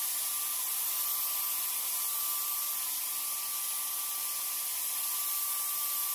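Handheld corded electric disinfectant fogger running steadily: a motor whine held at one pitch over the rush of air, spraying a fine mist of disinfectant solution.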